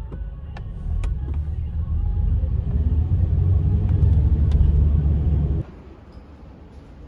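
Car cabin rumble while driving: low road and engine noise that grows louder over the first couple of seconds, with a few faint clicks, then cuts off suddenly about two-thirds of the way through, leaving a quieter background hum.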